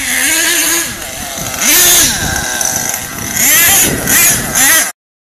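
Small nitro two-stroke engine of an RC monster truck revving in a series of throttle bursts, its pitch rising and falling with each blip. The sound cuts off suddenly near the end.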